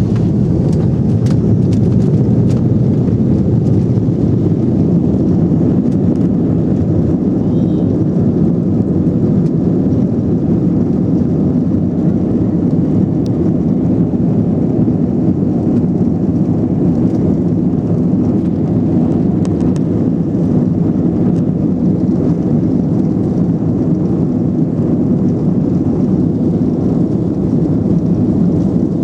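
Airplane engines and airflow during takeoff: a loud, steady low rumble that holds even throughout.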